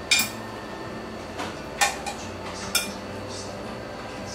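A serving utensil clinking against a bowl and plate as green beans are dished up: three sharp clinks spread over the first three seconds.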